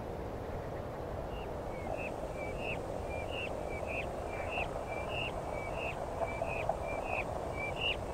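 A bird calling over and over from about a second in, about three calls every two seconds, each a short flat note that flicks upward at its end, over a steady outdoor ambient hiss.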